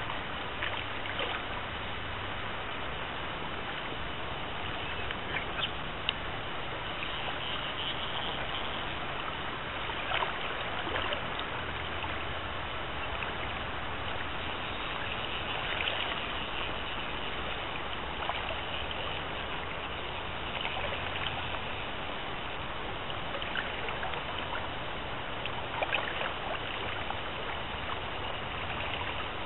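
Shallow river current running and rippling steadily, with a few short splashes.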